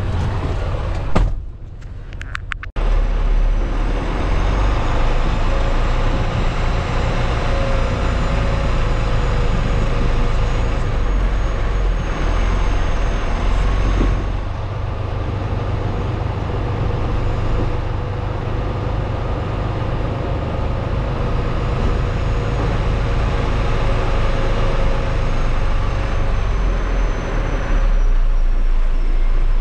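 Semi-truck's diesel engine running with a steady low rumble. The sound drops away briefly about a second in, then comes back abruptly.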